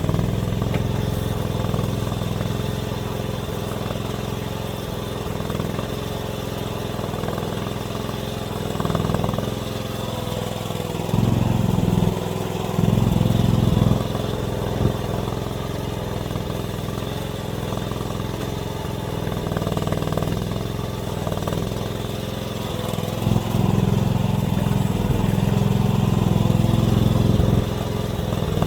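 AGT mini excavator's engine running steadily, getting louder for a few seconds about eleven seconds in and again from about twenty-three seconds in.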